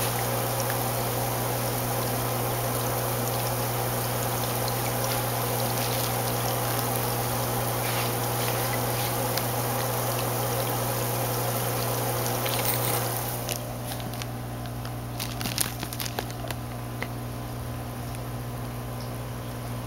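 Saltwater aquarium water running steadily with a trickling, pouring rush over a constant low pump hum. About 13 seconds in the rushing drops away, leaving the hum and a few sharp clicks.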